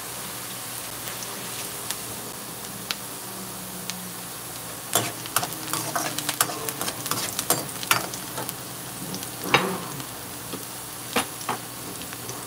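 Diced onions sizzling in hot oil in a pan, steady throughout. From about five to ten seconds in, a spoon stirs them, scraping and clicking against the pan, with two more knocks near the end.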